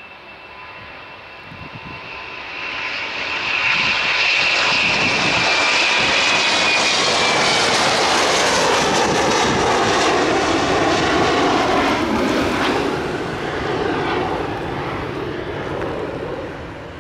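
Boeing 717's twin Rolls-Royce BR715 turbofans at takeoff power as the jet climbs out overhead: the engine noise builds over the first few seconds, stays loud with a high fan whine that slides slightly down in pitch as it passes, then fades away near the end.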